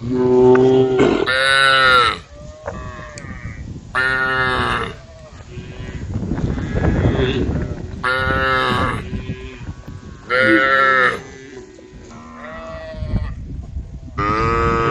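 Cows mooing in turn: about seven drawn-out calls of around a second each, some low and some higher-pitched, as the herd calls to one another.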